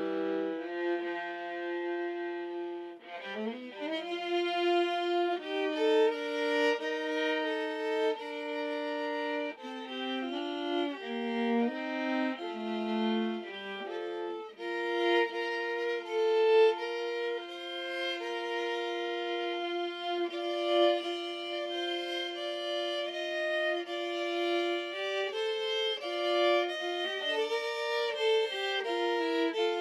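Two violin parts playing a slow hymn in harmony, with long bowed notes, the instrument overdubbed as a duet. There are brief breaks between phrases about three seconds in and again near the middle.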